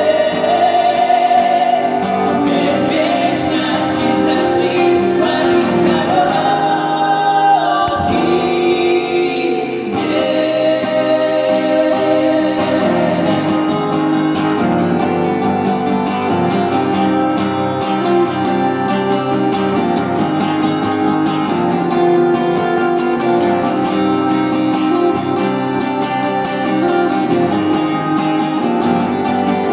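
Music: a sung pop ballad with guitar accompaniment.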